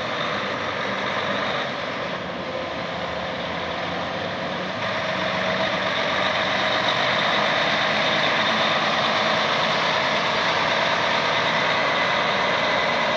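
Diesel engine of a 2016 Western Star semi tractor, a Detroit DD13, running as the truck drives slowly across the lot. The engine note is steady and grows a little louder from about five seconds in.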